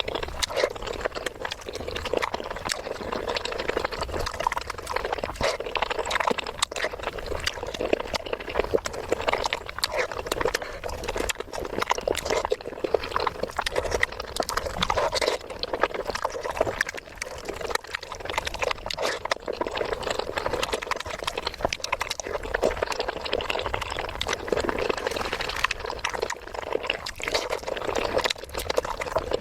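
Close-miked eating: continuous wet chewing and mouth sounds, with many small clicks and smacks.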